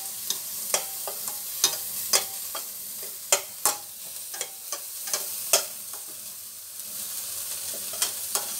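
Vegetables sautéing in hot oil in a stainless steel pot, sizzling steadily, while a metal spatula stirs them, with irregular sharp scrapes and clinks of the spatula against the pot, some ringing briefly.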